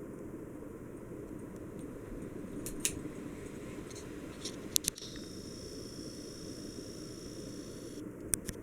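Hunter Kensington ceiling fan running steadily, a low, even whoosh of air and motor, with a few sharp clicks about three seconds in, twice near the middle and twice near the end.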